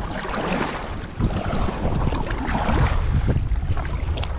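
Wind buffeting the microphone in a steady low rumble, over light water sounds and small scattered knocks around a kayak.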